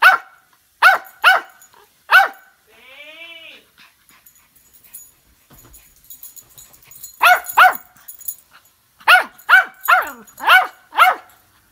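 A small dog barking in sharp, high barks that drop in pitch, in three bouts: four at the start, two after a pause of a few seconds, then five in quick succession near the end.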